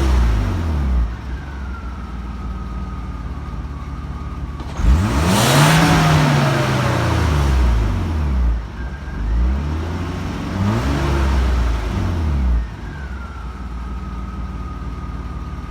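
BMW M50B25 2.5-litre straight-six with VANOS, idling and being revved in the stationary car: the revs fall back to idle, the engine is blipped sharply about five seconds in, revved again around ten seconds and dropped back to a steady idle. A thin whine sinks in pitch as the revs fall after each blip.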